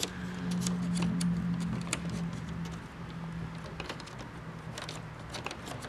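Light clicks and rattles of hard plastic grille parts being handled and fitted by hand, with a low steady hum through the first half that fades out.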